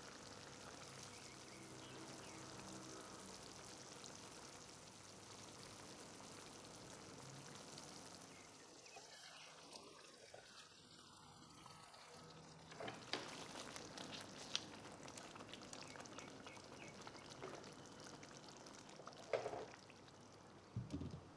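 Chicken curry simmering in a pan: a soft steady bubbling and sizzling, with a run of crackles from about halfway through. A couple of knocks near the end.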